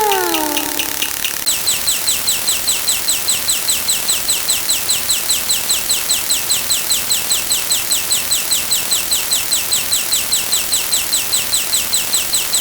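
A car alarm's electronic unlock chirp sound effect, repeated rapidly as short falling chirps about four or five a second over a steady hiss. A falling pitched tone sounds at the start and dies away about a second in, and the chirps jump higher in pitch soon after.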